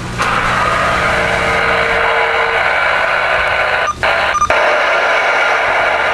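Uniden BC-980SSB CB radio receiving an open channel: steady static hiss from its speaker, starting abruptly just after the start. The hiss cuts out briefly twice about four seconds in.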